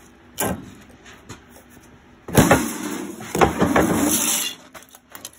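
Sheet steel being worked in a bench-mounted hand sheet-metal tool: a sharp metal knock, then about two seconds of rough metal scraping with knocks, and a few light clicks near the end.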